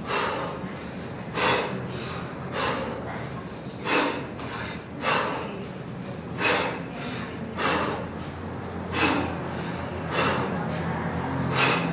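A man breathing forcefully and rhythmically through a kettlebell snatch set: a short, sharp, hissing breath about every second and a bit, one per snatch rep, about ten in all.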